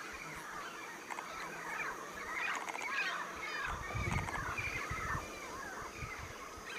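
Many birds calling at once, a steady chorus of overlapping chirping and honking calls. A low rumble joins in for about a second and a half near the middle.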